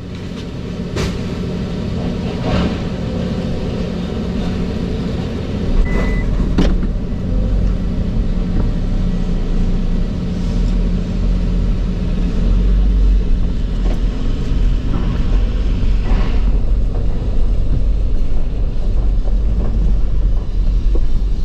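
A vehicle driving slowly over rough, potholed ground, heard from inside the cab. The engine runs steadily, a heavy low rumble builds from about five seconds in, and a few sharp knocks and rattles come as it bounces.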